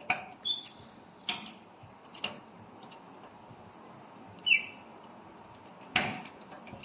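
A handful of sharp clicks and taps as wires are worked into circuit-breaker terminals in a metal panel box, the loudest about six seconds in. Two short high chirps, one of them falling in pitch, come about half a second and four and a half seconds in.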